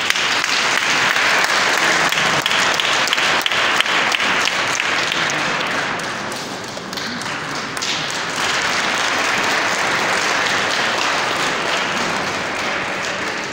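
Congregation applauding, a dense clatter of many hands clapping that eases a little partway through and then fills out again.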